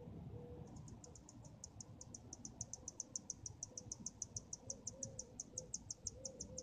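Faint insect chirping: an even, rapid train of short high-pitched pulses, about nine a second, starting just under a second in, over faint low outdoor rumble.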